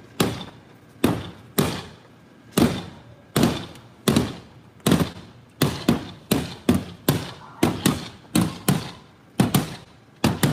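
A car's body being struck over and over: about twenty sharp bangs, each ringing briefly, coming faster after the middle.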